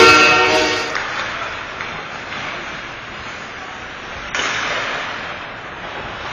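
Ice rink goal horn sounding loud and steady, cutting off about a second in. After it, a noisy arena background of crowd and skating sounds, which jumps suddenly louder about four seconds in.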